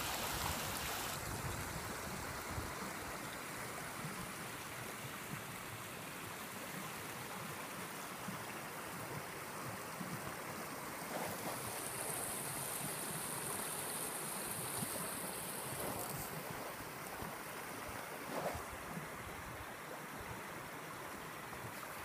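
Small forest river flowing over rocks and branches: a steady rush of water.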